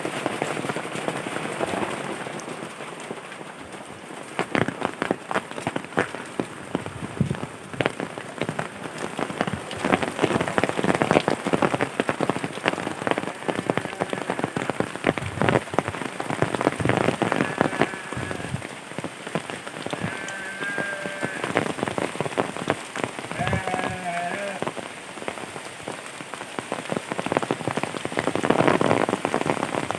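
Rain falling steadily, with a dense stream of sharp drop impacts on surfaces close to the microphone.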